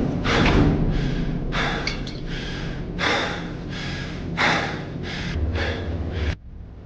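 A person breathing hard in quick, gasping breaths, about eight in a row over a low rumble, all cutting off suddenly near the end.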